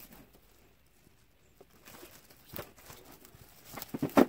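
Plastic cling wrap crinkling and crackling as it is pulled off its roll and pressed around a canvas. After a quiet start come scattered crackles, growing denser near the end, with the loudest one just before it ends.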